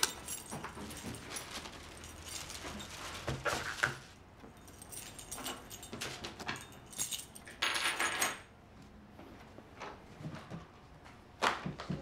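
Small household handling sounds: keys jangling and clinking, a plastic carrier bag rustling and bags being set down on a table, and a sharp click near the end as a door handle is turned.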